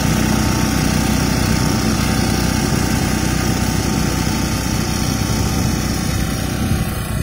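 Greaves engine of a walk-behind reaper running steadily while the reaper cuts through a standing crop, growing slightly fainter near the end as it moves away.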